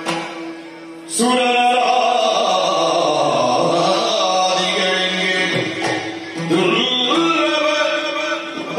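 Yakshagana music: a singer's melodic line over a steady drone. The voice breaks off just at the start and comes back strongly about a second in, while the drone holds throughout.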